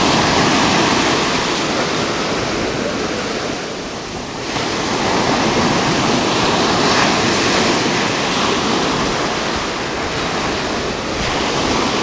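Ocean surf breaking and washing in the shallows close by, a continuous rushing wash that swells with each wave, easing briefly about four seconds in.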